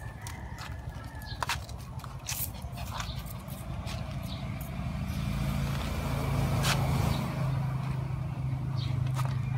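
A low engine hum, likely a passing or idling motor vehicle, that grows louder about halfway through, with scattered light clicks and taps over it.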